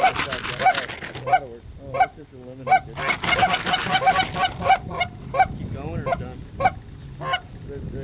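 Geese honking, about one honk every two-thirds of a second, with two stretches of fast, dense clucking chatter: one at the start and one about three seconds in.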